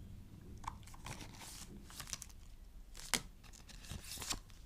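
Paper leaflets and box packaging being handled: scattered rustling and crinkling, with a sharp click about three seconds in.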